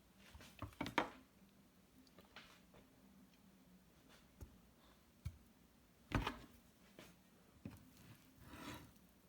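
Scattered light clicks and knocks of things being handled, with a louder thump about six seconds in.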